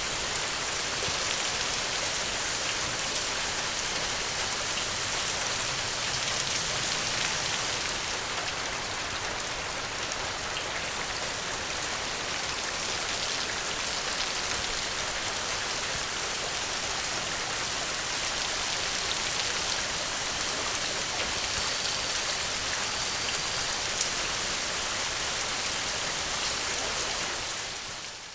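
Steady rain falling, a dense even hiss with scattered drop ticks, fading out near the end.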